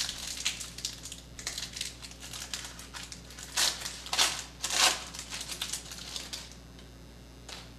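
Plastic wrapper of a trading card pack crinkling as it is torn open by hand. The loudest crackles come about four to five seconds in, then it dies down.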